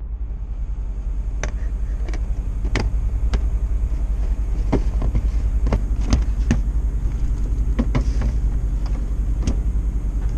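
A knife chopping broccoli on a cutting board: about a dozen sharp chops at an uneven pace, over a steady low drone.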